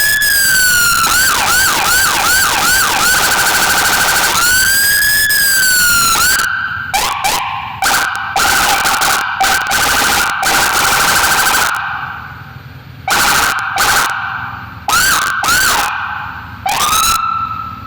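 Whelen electronic vehicle siren cycling through its tones. It opens with a slow rising and falling wail, then a fast yelp of about five quick sweeps, then another wail. After that comes a steady high tone broken by harsh short blasts, and finally stop-and-start bursts with quick upward chirps.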